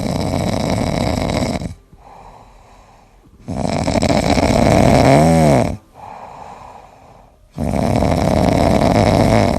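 Loud snoring: three long, noisy snores about four seconds apart, the middle one with a brief whistle that rises and falls.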